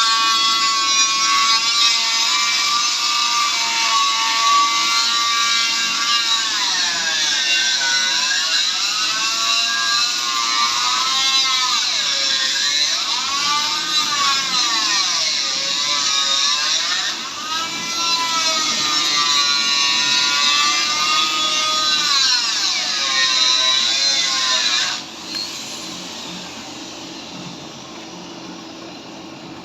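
Electric grinder grinding the steel of an excavator slewing bearing: a loud whine over a hiss, its pitch sagging and recovering repeatedly under load. It cuts off about 25 seconds in.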